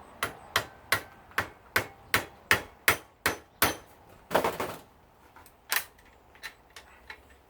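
Hammer driving a pointed tool into a water heater valve: about ten sharp blows at roughly three a second. Then comes a short scraping burst, one more hard blow and a few lighter taps, as the point fails to bite because it isn't sharp enough.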